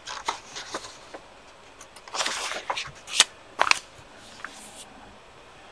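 Paper rustling and crinkling as the large pages of an instruction manual are turned and pressed flat by hand, in a few short bursts, the loudest about three to four seconds in.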